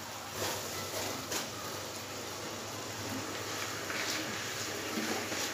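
Sugar syrup bubbling in a pan as half-cooked rice is tipped in from a colander, with a few light knocks and scrapes of a wooden spatula against the pan.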